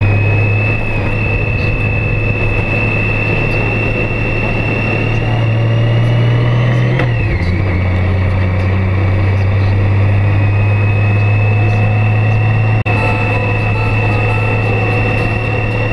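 Honda Gold Wing motorcycle riding along with engine running steadily over wind and road noise, a high whine above the engine note; the pitch climbs slowly, then drops sharply about seven seconds in.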